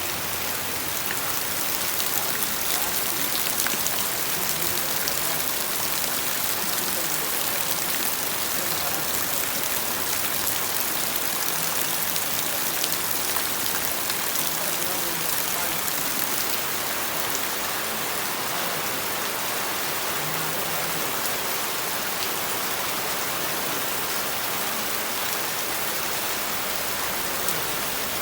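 Steady rain falling and pattering on surfaces, a dense even hiss with many small drop ticks.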